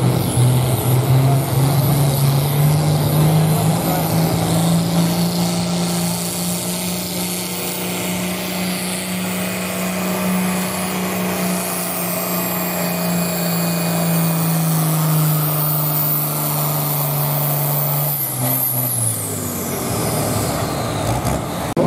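Farm tractor's diesel engine at full throttle, pulling a weight-transfer sled down a tractor-pull track. The revs climb in the first second, hold steady under the load, then fall off about eighteen seconds in.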